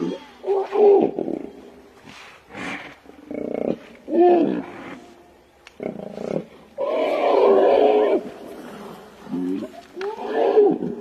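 Hippos roaring and bellowing at each other in a string of separate calls, the longest about seven seconds in, lasting over a second: a gaping threat face-off.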